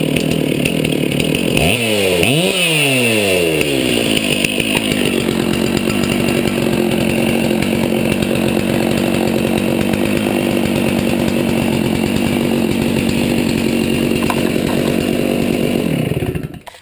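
Stihl 046 Magnum two-stroke chainsaw running. It revs up and back down once about two seconds in, then runs steadily until it is shut off near the end.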